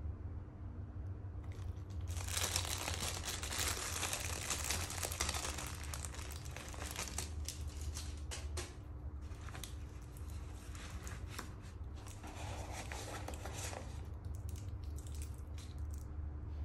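Thin clear plastic wrapping crinkling and crackling as a wristwatch is pulled out of its bag, starting about two seconds in and stopping a few seconds before the end, with a brief lull midway.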